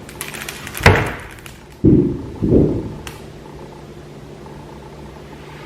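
Ingredients being handled on a counter: a stretch of rustling with a sharp knock about a second in, then two loud dull thumps about two and two and a half seconds in, over a steady background hum.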